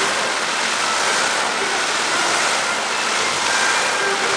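Rushing water from a fountain show: jets spraying and falling back in a steady, even roar of spray, sped up in playback.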